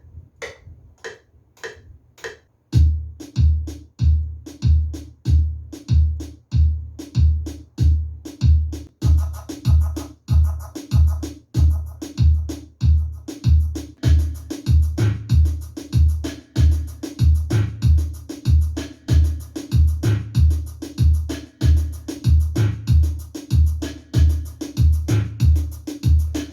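Reggaeton drum beat built from drum sounds sampled off vinyl records and played back on a sampler. It opens with light percussion taps. A heavy kick comes in a little under three seconds in, landing about twice a second, and hi-hats and more percussion join at about nine seconds.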